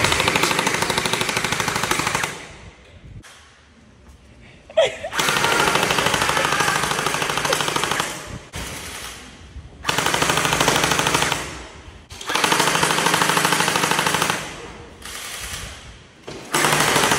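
SplatRBall SRB400 battery-powered electric gel ball blaster firing on full auto, a rapid buzzing rattle of shots in about five bursts of two to three seconds each, with short pauses between them.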